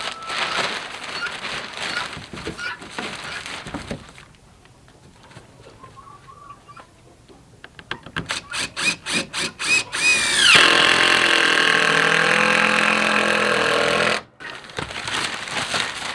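Power drill driving a screw through a wood strip: a series of short trigger pulses, then a steady whine of about four seconds that cuts off suddenly.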